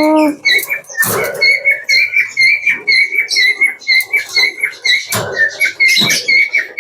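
Birds chirping in a rapid, even series of short high chirps, about three to four a second. Now and then a sharp clattering knock cuts across them, three times in all.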